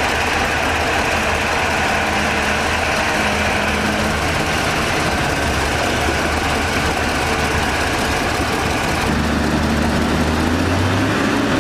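Heavy diesel engine of earthmoving machinery running steadily with a low drone. Its pitch rises slightly near the end as it revs up.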